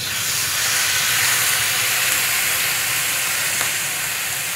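Marinated beef steak sizzling in a hot ridged grill pan over medium heat, starting suddenly as the meat goes in and then holding as a steady, even hiss.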